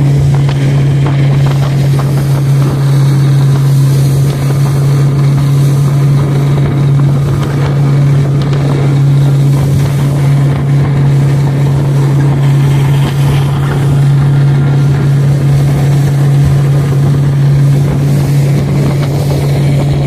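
Small boat's engine running steadily under way: a constant low drone with a rushing hiss of water and wind over it.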